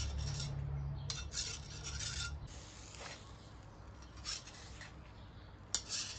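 Knife blade scraping grilled chicken wings off a metal shashlik skewer: rasping scrapes of steel on steel in short bursts, with a sharp click near the end. A low hum runs underneath and stops about halfway through.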